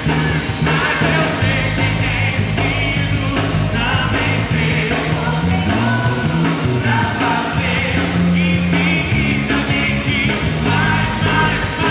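A live band plays, with a singer's voice over a steady electric bass line.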